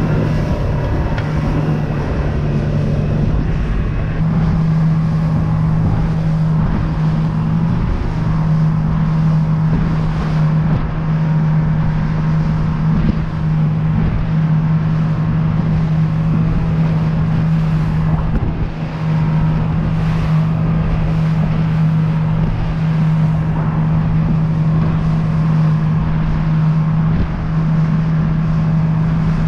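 A boat's outboard motor running steadily at cruising speed, a constant low hum, with a rush of wind and water as the hull moves.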